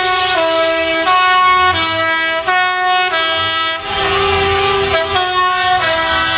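A show truck's musical air horn playing a tune: a run of held horn notes stepping up and down in pitch every third to half a second, over the low rumble of truck engines.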